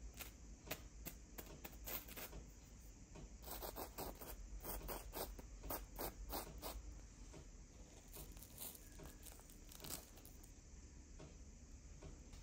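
Fingertip tapping and scratching the crisp, breadcrumb-coated crust of freshly baked pandesal rolls: a string of faint crisp clicks and scratches, thinning out after about seven seconds.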